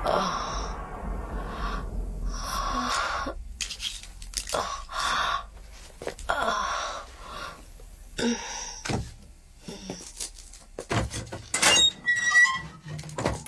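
A woman's heavy breathing, short sharp breaths and gasps about every second or two. Near the end come several sharp clicks and knocks as she handles a wall-mounted switch box.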